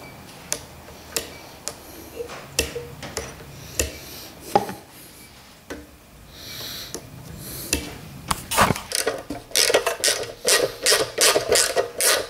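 Hand tools undoing bolts on a small petrol engine: scattered metal clicks and clinks, then, about two-thirds of the way in, a quick run of ratchet-wrench strokes at about three a second.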